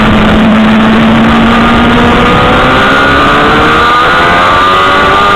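Onboard sound of a sport motorcycle engine on a race track, under a loud rush of wind. The engine note holds steady, then climbs gradually from about two seconds in as the bike accelerates out of a corner.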